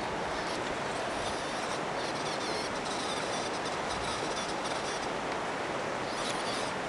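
RC rock crawler's motor and gears whirring in spurts as it climbs a steep rock, with a last short spurt near the end, over a steady hiss.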